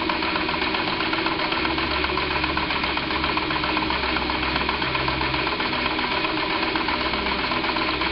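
Small live-steam model engine running steadily under steam, a continuous even mechanical running sound over a steady hiss.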